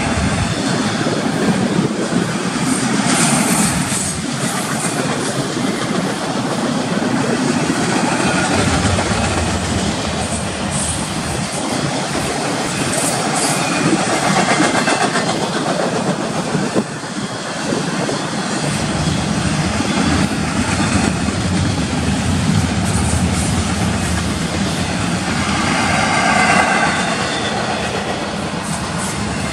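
Union Pacific intermodal freight train's double-stack container well cars and trailer-carrying spine cars rolling past: steady wheel-on-rail noise.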